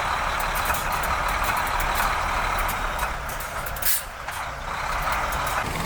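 A heavy vehicle such as a truck running, a steady rushing noise with scattered light clicks, dipping briefly about four seconds in.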